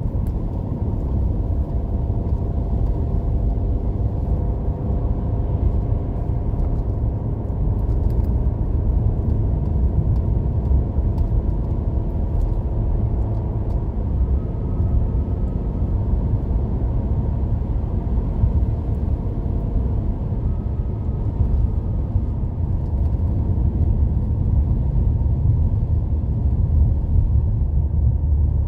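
Steady low rumble of a car driving on a snow-covered road, its engine and tyre noise heard from inside the cabin. Faint steady humming tones ride on it for the first ten seconds or so.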